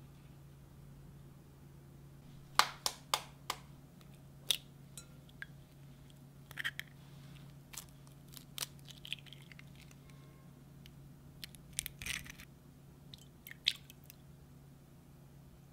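Eggs being cracked on the rim of a glass bowl: sharp taps and the crunch of breaking shell in a few separate bouts, the loudest a quick run of four taps a few seconds in. A steady low hum sits underneath.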